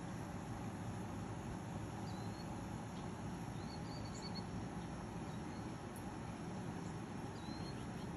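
Outdoor ambience: a steady low hiss with a few faint, short, high chirps, one about two seconds in, a brief trill around four seconds, and one near the end.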